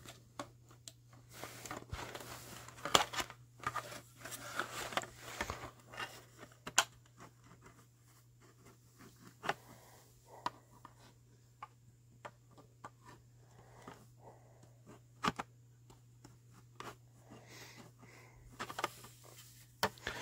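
Scattered small clicks, taps and rustles of hands handling small plastic and metal parts close to the microphone, with a few sharper clicks, over a faint steady hum.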